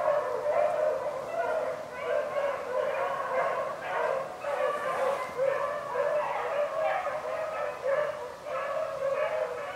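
A pack of beagles baying on a rabbit's trail, many hound voices overlapping without pause.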